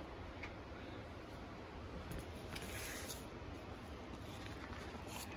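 Faint rustling of plastic sheet-protector pages being handled and turned in a binder, a few soft rustles about halfway through and again near the end, over a quiet room.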